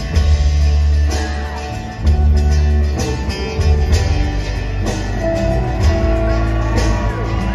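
Live rock band playing an instrumental passage between vocal lines: strummed acoustic guitar over sustained electric bass notes, with a drum stroke about every two seconds.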